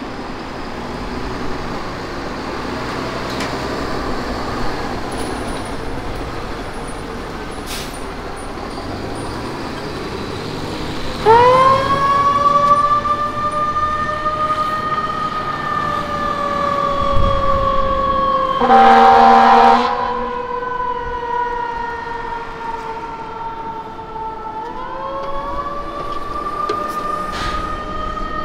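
Fire ladder truck's diesel engine running as it pulls out. Then a Whelen siren on its mechanical-siren tone winds up sharply and slowly sinks in pitch, with a loud horn blast of about a second in the middle. The wail winds up again near the end.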